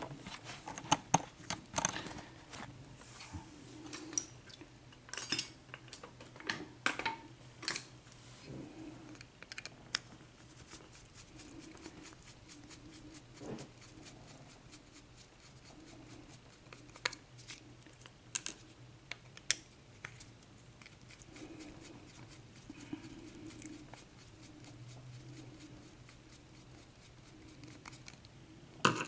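Small, irregular metal clicks and taps as a Schlage pin-tumbler cylinder lock is taken apart by hand to get at its pins.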